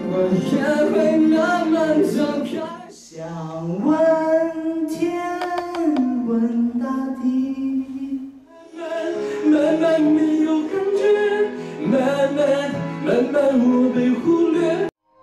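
Several short clips of men singing solo into a handheld microphone, cut one after another, with breaks about 3 and 8.5 seconds in. Long held notes sit between faster sung phrases.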